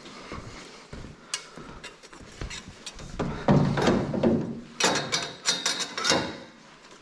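Sheet-steel gusset plates clinking and knocking against each other and against the steel roll-cage tubes as they are held up to the cage, with light handling at first and a run of sharp clattering knocks in the second half.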